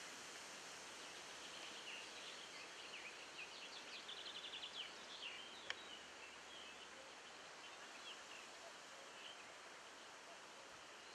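Faint open-air ambience: a steady hiss with birds singing short chirps, including a quick run of them around the middle, and a single sharp click shortly after.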